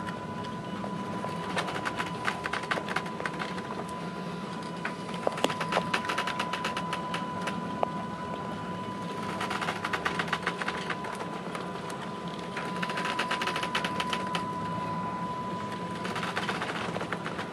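Ship's bridge: a steady low hum from the ship with a steady high-pitched tone over it, and every few seconds a burst of rapid rattling clicks lasting a second or two.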